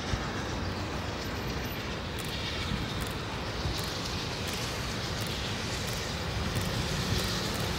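Diesel locomotive 4501 approaching at the head of a heritage train, its engine a low steady rumble that grows slowly louder as it nears.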